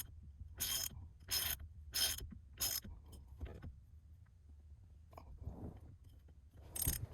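Hand ratchet wrench tightening the steering-wheel hub bolt, its pawl clicking on each back-swing about once every two-thirds of a second, four strokes in the first three seconds. Then a pause with faint handling noise and one more ratchet stroke near the end.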